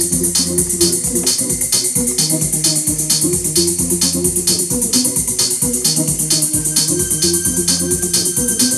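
Techno beat played on a Native Instruments Maschine drum machine and sampler: a steady kick drum about two beats a second under fast hi-hats and a repeating bass line, with a thin high tone coming in near the end.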